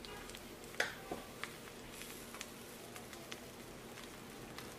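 A spatula stirring a large pot of steaming jollof rice: irregular soft scrapes and taps against the metal pot, the loudest one about a second in, over a faint steady hiss.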